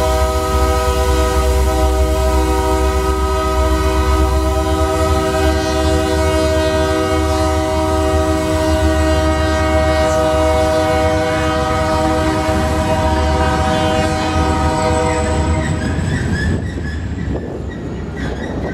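BNSF diesel freight locomotives passing with the air horn held steadily over the engines' low rumble; the horn cuts off about fifteen seconds in, leaving the clatter of freight cars rolling by on the rails.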